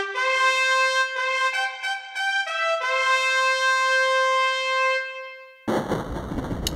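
Trumpet fanfare: a short run of bright notes ending on a long held note that fades away, then a sudden loud crash about a second before the end.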